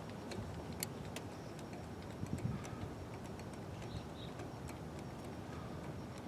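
Scattered light clicks and ticks, irregular and a dozen or so, from tools and ignition parts being handled during spark plug work, over a low steady background.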